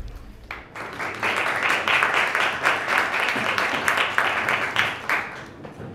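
Small audience applauding, starting just under a second in and dying away near the end.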